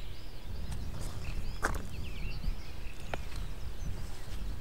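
Songbirds chirping and twittering in short, rapid phrases, over a steady low rumble of wind, with two sharp clicks about one and a half and three seconds in.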